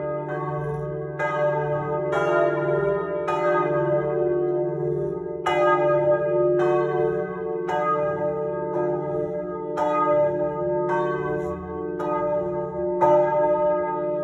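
Full peal of three bronze swinging church bells cast by Perrin-Martin in 1860, ringing together. Clapper strikes come about once a second, each adding fresh overtones over a continuous, overlapping hum.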